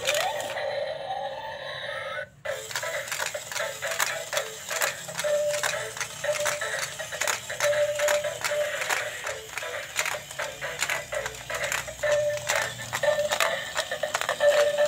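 Dancing octopus robot toy playing its tinny electronic tune, with a fast, even beat of clicks, short beeping notes and a rising sweep near the start; the sound drops out briefly about two seconds in.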